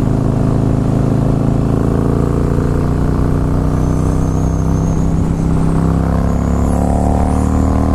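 Harley-Davidson Fat Boy S V-twin engine pulling steadily under throttle while riding, its pitch rising gradually over the last few seconds as the bike accelerates. It is being run through its rev range to autotune a Vance & Hines Fuel Pack.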